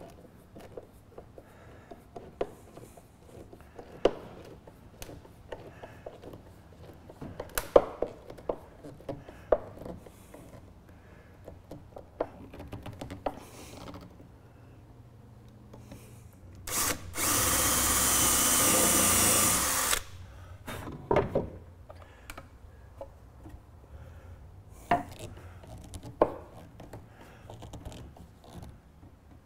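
Hand ratchet wrench clicking and metal tools clinking as bolts are tightened on a bronze mast partner, in scattered bursts of clicks and knocks. About halfway through, a power tool runs with a loud steady whir for about three seconds.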